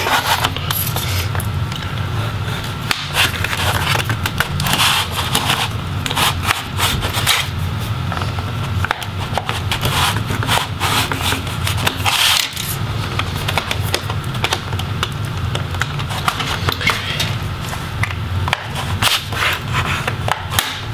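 Plastic front bezel of a laptop display being pried off: a tool scrapes along the seam and small clicks and snaps sound at irregular intervals as the retaining snaps let go. A steady low hum runs underneath.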